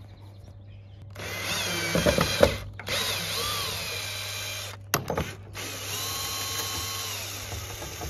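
Cordless drill-driver backing screws out of a metal bracket: three runs of motor whine, the pitch rising and falling with the trigger, with a few knocks between.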